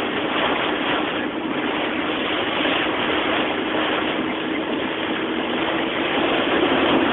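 Heavy rain hitting a car's windshield and roof, heard from inside the moving car as a dense, steady hiss over a faint steady hum.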